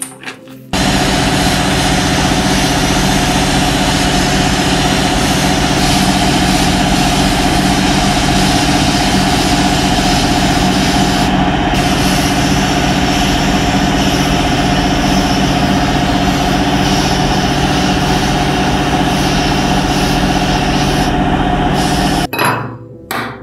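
A power tool's motor running steadily and loudly. It starts suddenly about a second in and cuts off near the end, giving a constant hum with a hissing grind over it.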